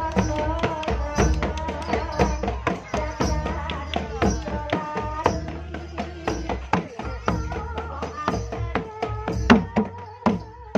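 Live jaranan gamelan music: rapid kendang drum strokes under a sustained, wavering melody line.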